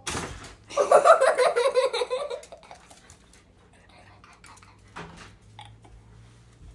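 A sharp click, then a person's voice for about two seconds, and a fainter click about five seconds in.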